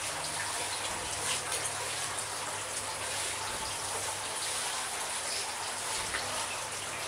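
Hands rubbing and smoothing wet clay on the neck of a large hand-built clay jar: a steady wet hiss dotted with small squelches and crackles.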